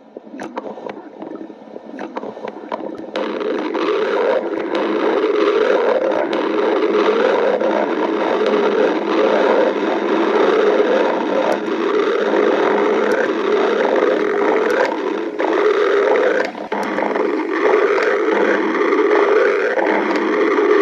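A person's stomach growling loudly and at length: a low, wavering growl that swells over the first three seconds, then runs on almost without a break, with a few faint clicks and a brief drop about sixteen seconds in.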